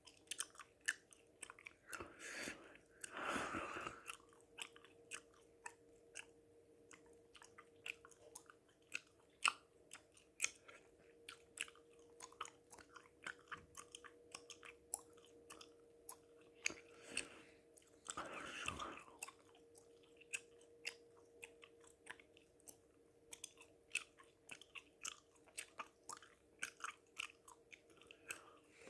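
Gum chewing: a continuous run of quick, sharp mouth clicks. Two long heavy breaths stand out, one about two to four seconds in and one about seventeen to nineteen seconds in.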